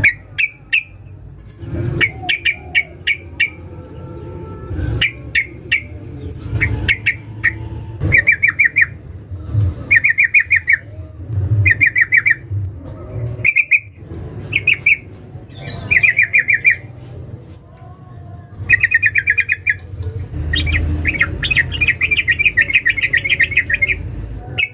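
Yellow-vented bulbul (trucukan) giving fast, rattling chatter calls in short bursts, one every second or two, with a longer unbroken run near the end. It is presented as a female calling to a male.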